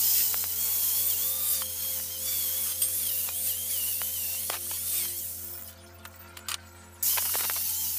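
Handheld electric angle grinder working the bare metal tubes of a bicycle frame: a hissing scrape over a motor whine that wavers in pitch as the pressure changes. It drops away for over a second past the middle, then comes back near the end.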